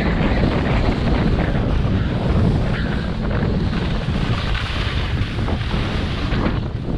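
Wind rushing over the microphone of a camera worn by a downhill skier, a loud steady rumble, with the skis hissing over packed snow.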